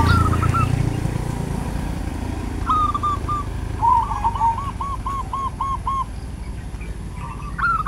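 A motorcycle passing and fading away in the first second or so, while a bird calls with short rising notes, then a quick run of about eight repeated rounded notes, roughly four a second, in the middle, and more calls near the end.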